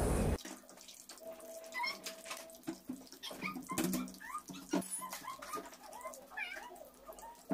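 Potato cutlets deep-frying in hot oil in an iron kadai, with a steady run of quiet crackles and pops. Over it come many short, high chirping calls from an animal.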